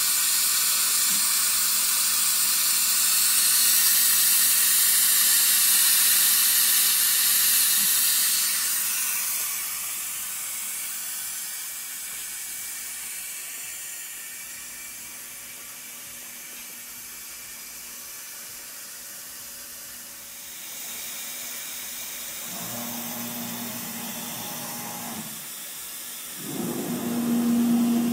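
The air-cooled spindle of a 2007 MultiCam 3000 Series CNC router running its warm-up, heard mostly as a loud hiss of its compressed cooling air, which fades after about nine seconds. Near the end the gantry traverses at high speed in two passes, each with a low steady motor tone, the second louder.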